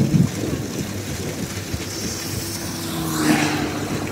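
Heavy rain pouring onto an asphalt road: a steady hiss over a low rumble, with a faint hum that swells about three seconds in.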